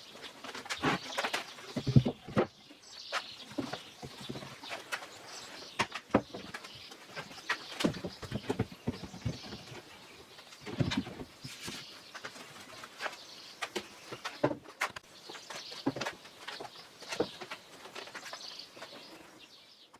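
Irregular knocks, clicks and rustling from hand work at a workbench, handling wood and hardware, with no power tool running.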